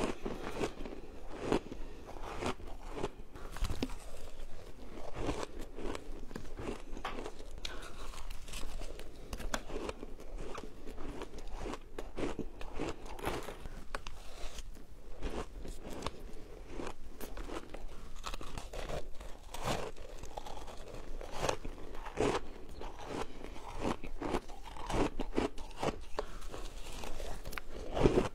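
Frozen shaved ice being bitten and chewed close to a lapel microphone: a continuous, irregular series of crisp crunches.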